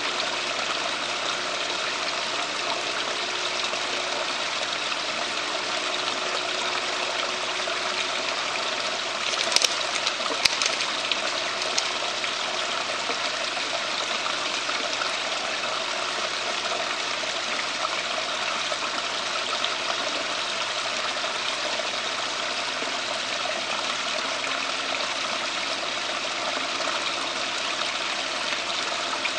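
Steady rush of running water from a backyard koi pond's water feature, with a faint low hum underneath. A few sharp clicks come about ten seconds in.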